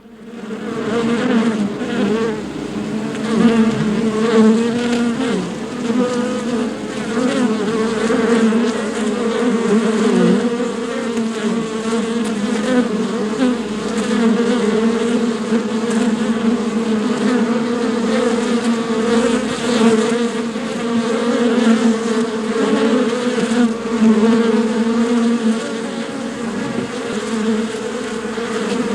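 A swarm of bees buzzing: a dense, continuous drone of many wingbeats, its pitch wavering constantly, swelling up over the first second.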